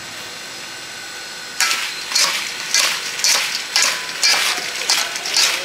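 A metal spoon tossing whole green sour fruits with salt and chili seasoning in a stainless steel mixing bowl, a scrape-and-rattle about twice a second that starts about a second and a half in.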